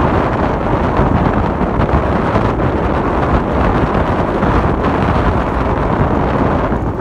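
Loud, steady wind buffeting on the microphone over the low rumble of a vehicle moving along a road.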